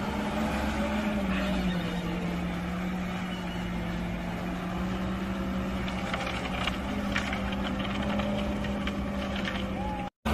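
Diesel engine of an Ajax Fiori self-loading concrete mixer running steadily as the machine drives, its note dropping slightly about a second and a half in.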